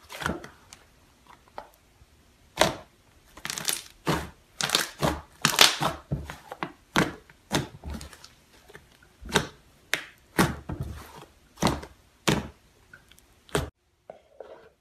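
Thick purple slime being stretched and folded by hand, giving an irregular run of sharp crackles and pops, several a second at times, that cuts off abruptly near the end.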